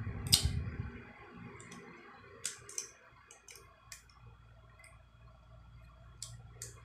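Scattered sharp metal clicks and taps from a hand pop-rivet gun being handled as a bent clothespin spring is worked into it, with a low handling rumble in the first second.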